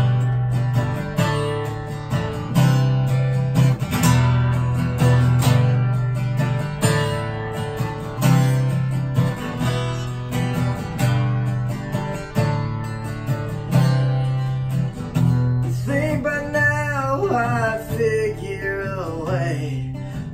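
Steel-string acoustic guitar strummed in a steady rhythm with ringing bass notes, played as an instrumental passage with no singing.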